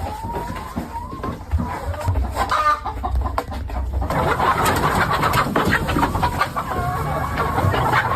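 A flock of chickens clucking and calling, the clucking growing denser and busier about four seconds in.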